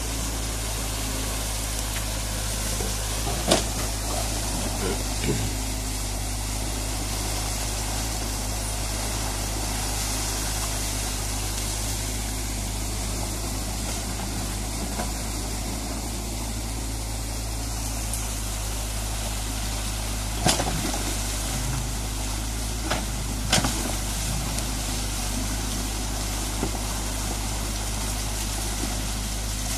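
Excavator's diesel engine running steadily over the rush of water pouring through a breached beaver dam, with a few sharp knocks as the bucket digs into the dam's sticks and mud.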